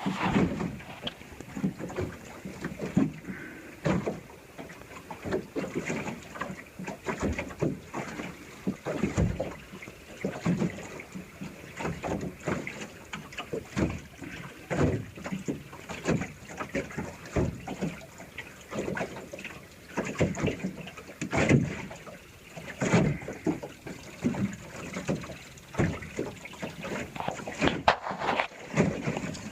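Small sailboat under way: wind buffeting the microphone in irregular gusts, with water rushing along the hull.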